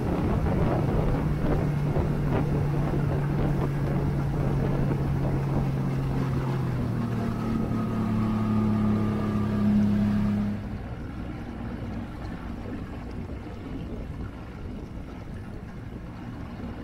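Outboard motor running at cruising speed behind a small boat, with rushing wake water. A little over ten seconds in the engine is throttled back: the sound drops sharply in level and the rushing of the wake fades as the boat slows to a low, steady run.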